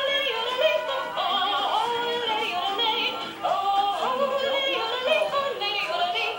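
A singing goat novelty song: a bleating, wavering goat-like voice sung over music, with phrases that swoop upward, at about a second in and again halfway through.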